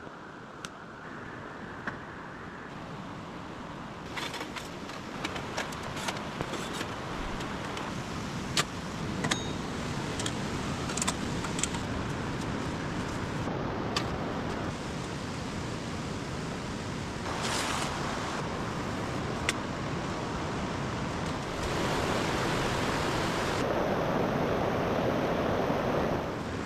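Mountain stream water running, a steady rushing noise that shifts in level several times. Scattered sharp clicks and taps sound over it.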